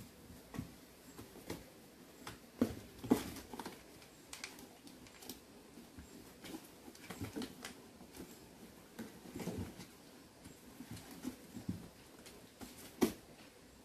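Cats and kittens eating dry kibble from metal bowls and moving about on cardboard boxes: scattered light clicks and knocks. A few sharper knocks come about three seconds in and again near the end.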